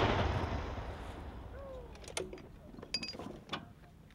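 Rolling echo of an M119 105 mm howitzer shot fading away over the first two seconds, followed by a few faint clicks and knocks.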